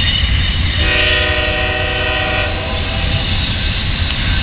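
CSX freight locomotive's air horn sounding one long blast of about two seconds, a chord of several notes, starting about a second in, over a steady low rumble.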